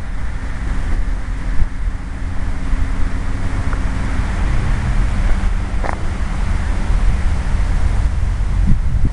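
Wind buffeting the microphone in a light breeze, a heavy low rumble, with a faint steady hum over the first four seconds and a brief faint chirp about six seconds in.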